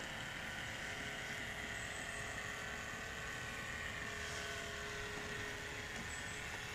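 Radio-controlled model boat's motor running with a steady whine as it cruises; the owner calls it noisy.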